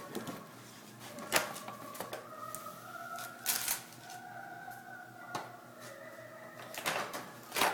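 Dogs ripping and chewing at a cardboard gift box and its wrapping: scattered sharp tearing and crackling noises, the loudest about one and a half, three and a half and seven seconds in.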